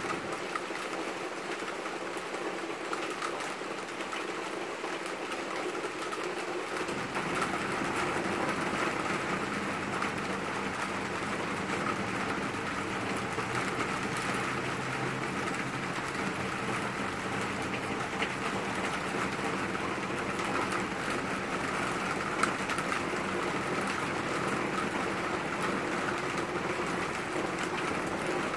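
Steady summer rain falling on leafy trees and bushes, an even hiss with no distinct drops standing out. About seven seconds in, it grows a little louder and fuller.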